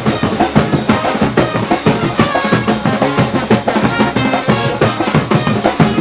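Brass band music with a heavy, driving beat of bass drum and snare, with sustained horn notes over the drums.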